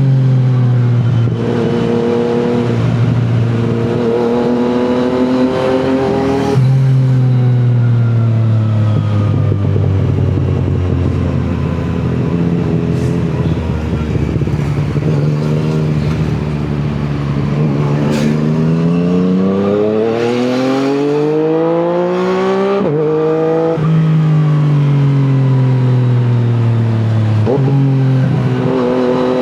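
Yamaha MT-09's three-cylinder engine through an Akrapovic exhaust, ridden through the gears: a long stretch of falling pitch as it slows, then a rising pull about two-thirds of the way in, broken by quick shifts that drop the pitch suddenly.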